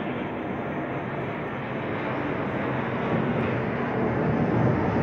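An airplane flying overhead: a steady engine rumble that grows gradually louder.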